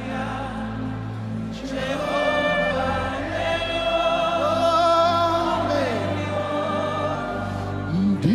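Live gospel worship music: many voices singing long, held notes over a steady low accompaniment.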